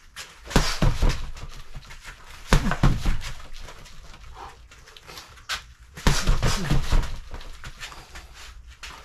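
Gloved punches thudding on a BOB Century freestanding punching dummy in three quick flurries, about half a second in, at two and a half seconds and at six seconds, with the boxer's sharp breaths between them.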